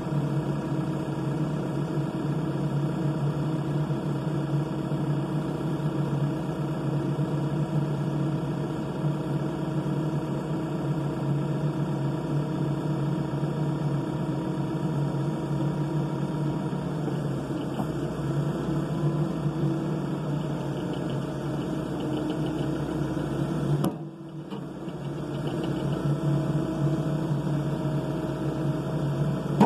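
Case 580ST backhoe loader's diesel engine idling steadily. About three-quarters of the way through the sound drops off abruptly and builds back up over a couple of seconds at a slightly different pitch.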